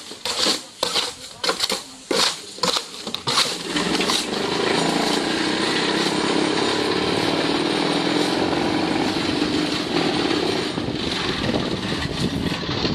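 A cinder-block vibro-press: a run of sharp metal knocks, then about four seconds in its vibrator motor starts and runs steadily, shaking the block mix in the mould to compact it. The motor sound eases near the end.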